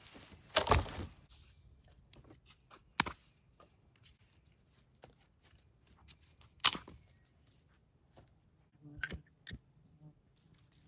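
Dry sticks and twigs being handled and snapped: a clatter of wood about half a second in, then several sharp cracks, the loudest about three and about six and a half seconds in, with quieter rustling of twigs and leaf litter between them.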